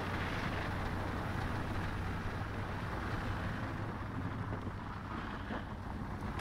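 Steady vehicle noise with a constant low hum: traffic and a car moving slowly through snow.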